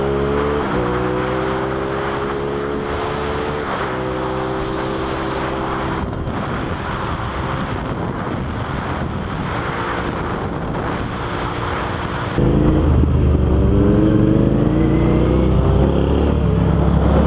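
Suzuki SV650's V-twin engine heard from the saddle over wind rush, pulling up through the gears with two upshifts in the first four seconds, then holding a steady cruise. About twelve seconds in the sound jumps louder and the engine climbs in pitch again under acceleration.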